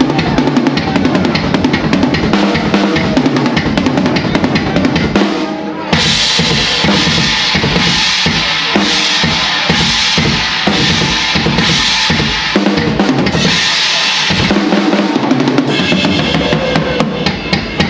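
Drum kit played loud and fast in live metal drumming, with rapid bass drum strokes under snare hits. About six seconds in, the sound jumps abruptly to a brighter passage dense with cymbals.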